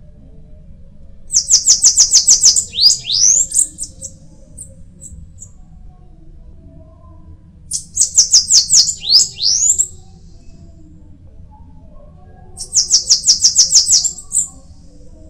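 Bananaquit singing three songs, about five seconds apart. Each is a rapid, high run of repeated thin notes, about eight a second, ending in a few quick rising notes.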